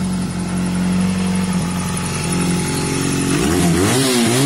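Classic 50cc moped engine idling steadily, then revved up and down a few times in quick blips from about three and a half seconds in. It runs without problems.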